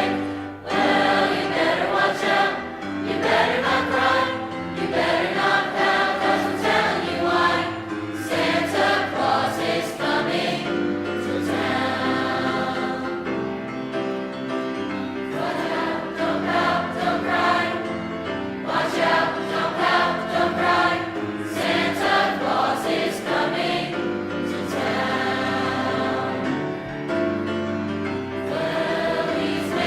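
High school choir singing a piece in concert, many voices together without a break.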